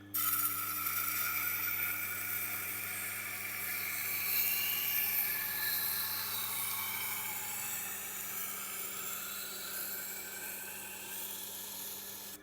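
Knife steel grinding against a Tormek wet grinding wheel, edge leading, cutting a new bevel on the blade: a loud hiss that starts suddenly, eases slowly and cuts off near the end as the blade is lifted. Under it is the steady hum of the grinder's motor.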